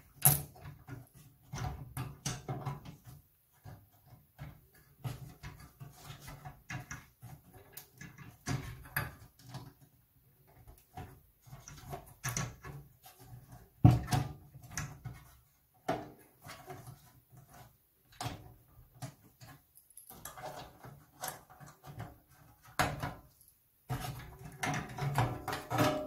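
Irregular clicks, knocks and scraping of an IBM PC 5150 motherboard being pushed and slid against its metal housing while its plastic standoffs fail to lock into their slots. The sharpest knocks come right at the start and about halfway through, with a busy run of handling near the end as the board is worked loose.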